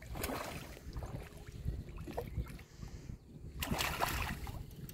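A hooked patí catfish thrashing at the water's surface as it is reeled in, with a burst of splashing about four seconds in. Steady wind rumble on the microphone underneath.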